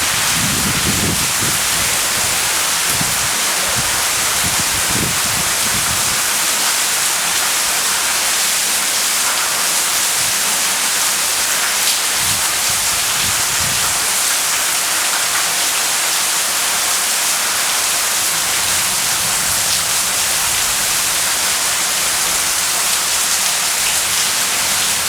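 Heavy rain falling steadily in a dense hiss during a thunderstorm, with low rumbles in the first few seconds and once more near the middle.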